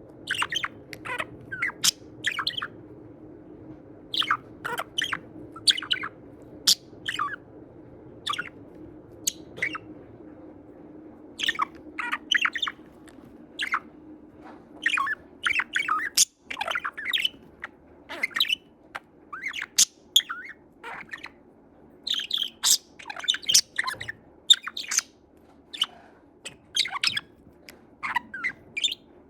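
Budgerigar chattering: rapid, irregular chirps and squawks in quick clusters, over a faint steady hum.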